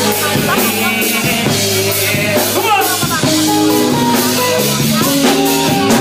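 Live bachata band playing, with electric bass and a drum kit keeping a steady beat under pitched melody lines.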